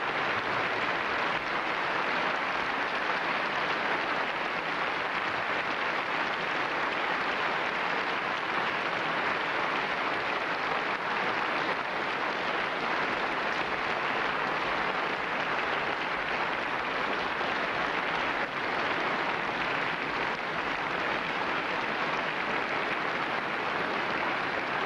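Audience applauding steadily for a classical guitarist.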